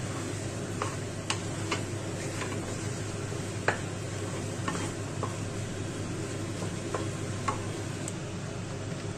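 Wooden spatula stirring and scraping egg pasta in a nonstick pan, with irregular light clicks and taps of the spatula against the pan and one sharper knock near the middle, over a steady low background noise.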